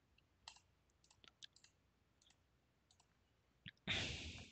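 Faint computer mouse clicks, scattered and quick, with a short, louder rush of noise about four seconds in.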